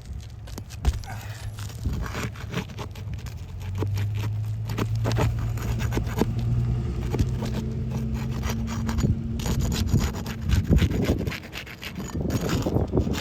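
Wind-damaged asphalt roof shingles being lifted and pried up, with irregular scraping, rubbing and crackling as they are worked loose. A low steady hum runs through the middle.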